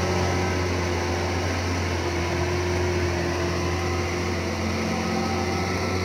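LGMG MT60 mining dump truck's diesel engine running with a steady low drone as the truck drives slowly over dirt.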